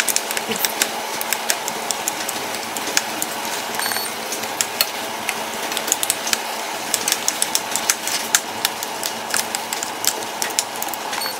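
Metal spoons clicking and scraping against a nonstick pan while mashing and stirring boiled potatoes: many quick, irregular clicks over a steady background hum.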